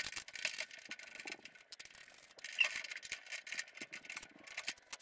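Light metallic clicks and rattles of hand tools and bolts as the aluminium nozzle is unbolted from a homemade jet boat's jet unit, in short irregular bursts.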